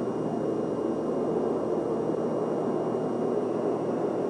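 Steady rushing background noise of a large hangar interior, even in level throughout, with a faint high steady whine over it.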